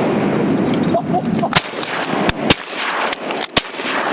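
Several shotgun shots fired in quick succession, from more than one hunter, at ducks. They come about a second and a half in and run to near the end, over a steady rushing noise.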